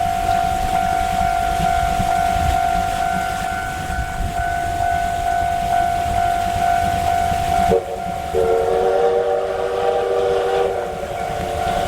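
A level crossing warning bell rings steadily while a train rumbles past. After about eight seconds the rumble drops away and a train whistle sounds for about two seconds over the bell.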